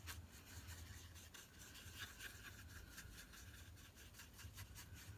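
Faint, quick scratching strokes of a paintbrush stirring and rubbing paint around on a plastic palette.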